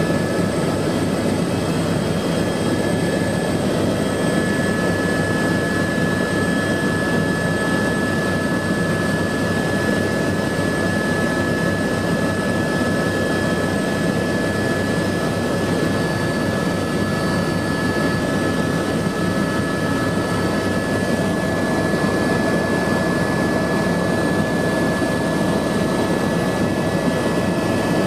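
Turbine helicopter in cruise flight heard from inside the cabin: a steady high turbine whine over a dense, even rumble of engine and rotor noise.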